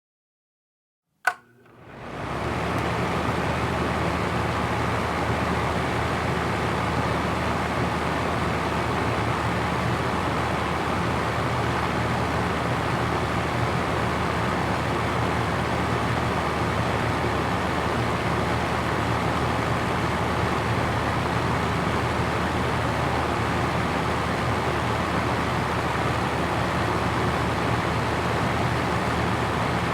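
High-powered room fan: a sharp click about a second in, then the fan comes up to speed within about a second and runs with a steady rush of air over a low motor hum.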